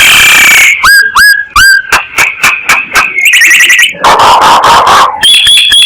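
Myna lure calls: a loud, rapid run of harsh squawks mixed with short upward-hooked whistles, a fast chattering trill in the middle and a held high whistle near the end.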